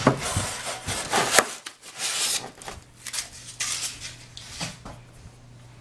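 Foam model-airplane parts scraping, rubbing and knocking against styrofoam packing as they are handled in and out of the box. The sound is an irregular run of rubs with a few sharp taps, loudest in the first second or so and fading to lighter rustling.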